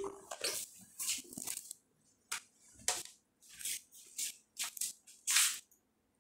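Short, irregular rustling and shuffling noises of a person setting a guitar down on a leather sofa and getting up, about a dozen in a row. The last ring of a guitar note fades in the first moment.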